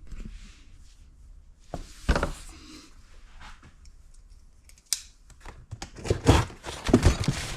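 Cardboard shipping box being cut and opened by hand: a few knocks, then a burst of scraping and rustling of packaging near the end.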